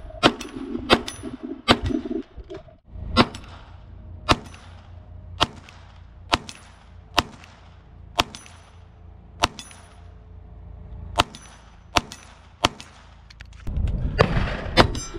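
Single shots from a Glock 44 .22LR pistol, fired at a slow steady pace of about one a second, with metallic clangs of hits on a steel popper target. Background music fades out about two seconds in and comes back near the end.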